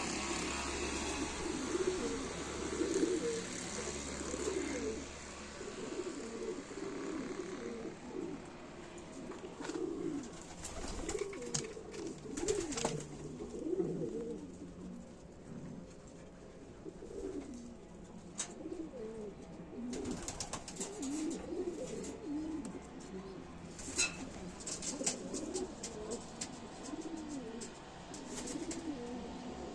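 Many domestic pigeons cooing over one another in a continuous low, overlapping chorus, with scattered short clicks in the middle and later part.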